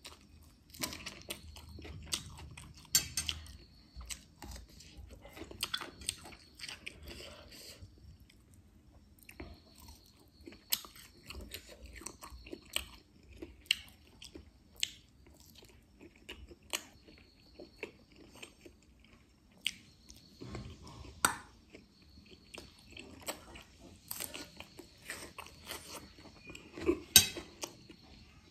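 A person eating close to the microphone: chewing and crunching bites of spicy noodles, fried sausage and raw onion, with irregular sharp crunches every second or two.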